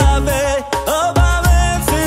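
Background music: a wavering, ornamented melody over a heavy bass beat.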